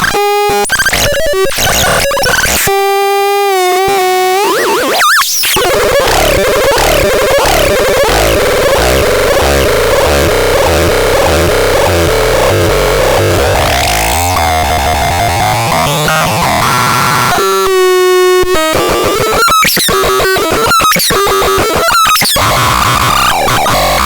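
Synthesizer making a loud, harsh, chaotic noise texture with sweeping pitches. Held buzzy tones break through briefly near the start and again about two-thirds of the way in, and the sound chops on and off rapidly near the end.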